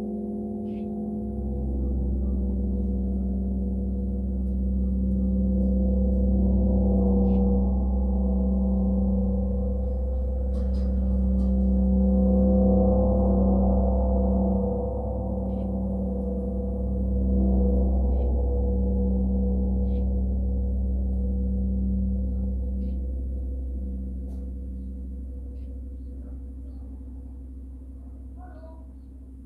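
A gong ringing with long, sustained low tones that swell and ebb several times, as if played continuously. The sound fades away over the last several seconds.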